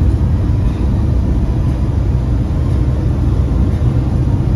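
Steady low rumble of road and engine noise inside a Tata car's cabin while it cruises along a highway.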